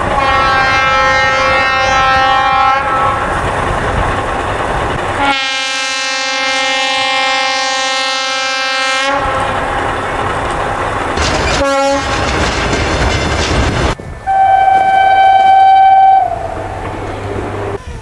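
Diesel locomotive air horns sounding a series of blasts over the rumble of the train: a blast of about two seconds, a long one of about four seconds, a brief toot, then a loud two-second blast near the end.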